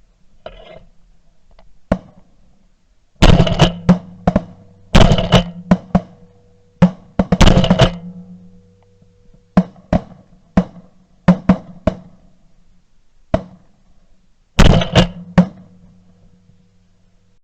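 Background music: heavy drum hits in an uneven, driving pattern over sustained low bass and guitar notes.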